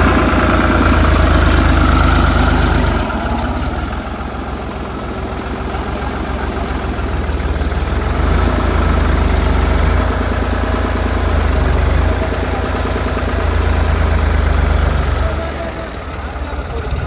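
New Holland 5500 tractor's 55 hp diesel engine running under the operator's throttle. It is loud for the first few seconds, eases off, then swells up and down a few times before dropping back near the end.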